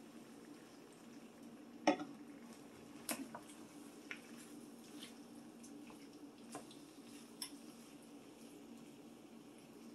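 A cooking utensil knocking and clinking against a skillet of potatoes and vegetables while stirring. There are about seven separate knocks, the loudest about two seconds in, over a low steady hum.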